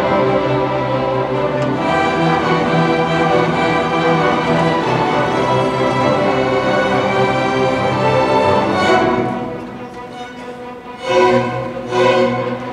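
Middle-school string orchestra of violins and cellos playing a piece in sustained, full chords. About nine seconds in the music drops quieter, then two short, loud accented chords sound near the end.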